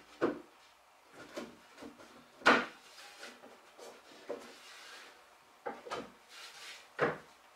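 Wooden knocks and scraping as a back panel is pushed and worked into the grooves of an oak cabinet during a dry fit, with the loudest knock about two and a half seconds in and a short sliding rub near the end. The panel sits a little snug from top to bottom.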